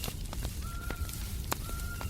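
Wood fire crackling, with scattered sharp pops over a steady low rumble of white noise. Two held, steady animal calls, each about half a second long, come about two-thirds of a second in and again near the end.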